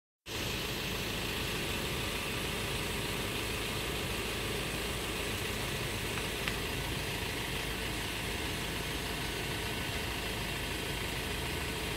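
An engine idling steadily, a constant low rumble under even background noise.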